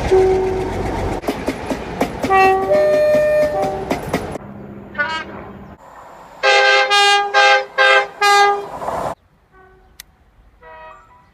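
Train horns sounding in a run of short clips: a two-tone horn alternating between two pitches, then about five short, loud blasts in quick succession, and a fainter horn blast near the end, with clipped cuts between them.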